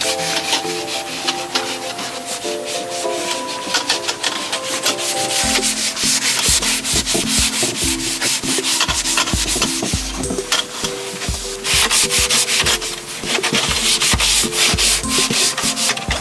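Scrub pad rubbed hard back and forth over wet varnished wood, a rapid rasping scrub, stripping varnish loosened by oven cleaner. The strokes grow heavier about five seconds in.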